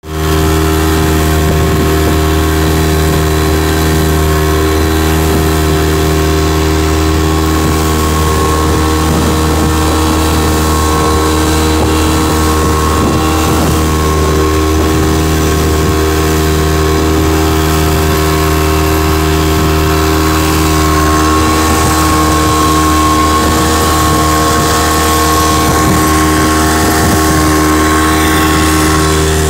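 Outboard motor of a small wooden fishing boat running at a steady cruising speed, one constant drone whose pitch does not change, over the rush and splash of the wake.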